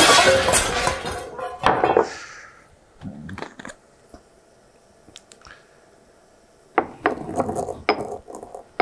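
Stone mortar and pestle clattering as they are handled and set down. About three seconds in, mustard seeds are poured into the mortar. Near the end the pestle crushes the seeds in repeated grinding strokes.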